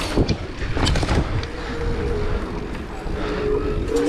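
Mountain bike rolling and landing, with a few sharp knocks in the first second over a steady low rumble of wind and tyres. A faint steady hum joins about a second and a half in.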